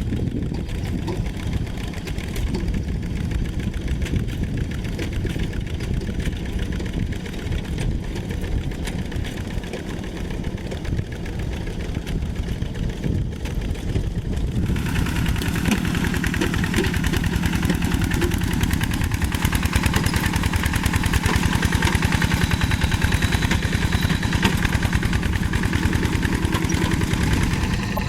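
Diesel tractor engine running at work. About halfway through the sound turns louder and harsher, and in the last third it runs with a fast, even pulsing.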